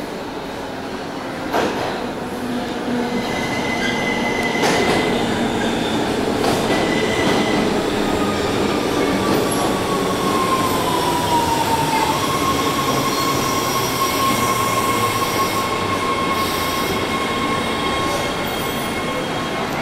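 Six-car Washington Metro train running into the station: wheels rumbling on the rails, with two sharp clicks in the first five seconds. A whine glides down in pitch as the train slows, then a steady high squeal holds for several seconds.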